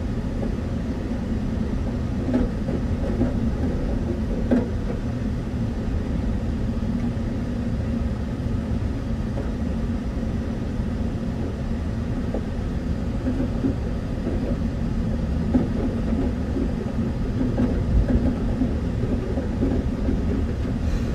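Car driving along a rough grassy field track, heard from inside the cabin: a steady low rumble with a few light knocks, as the grass down the middle of the track brushes and scrapes the car's underside.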